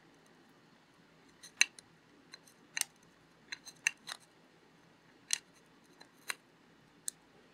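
Tip of a small pair of pliers clicking against a tiny plastic wire connector and its socket on a gimbal motor housing: about ten short, light, irregular clicks.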